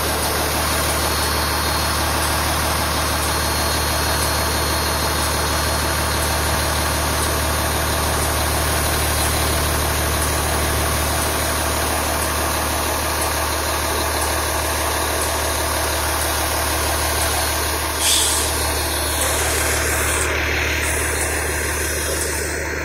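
Fire engine's diesel engine idling, a steady low hum, with one short knock late on.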